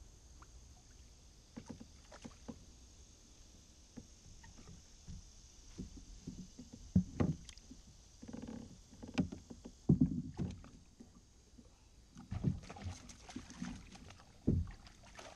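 Handling noises in a plastic fishing kayak while a small bowfin is unhooked with pliers: irregular knocks and thumps against the hull, loudest about seven, ten and fourteen seconds in.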